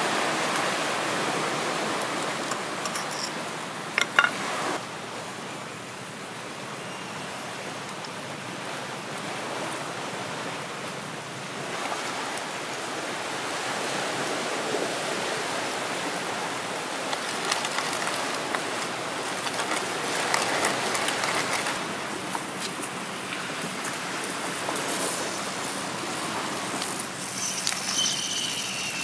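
Sea surf washing on a rocky shore, a steady rush that slowly rises and falls, with a single sharp knock about four seconds in.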